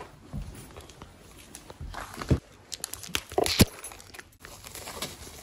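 Clear plastic wrapping on acoustic foam panels crinkling and rustling as the panels are handled, with sharper crackles about two seconds and three and a half seconds in.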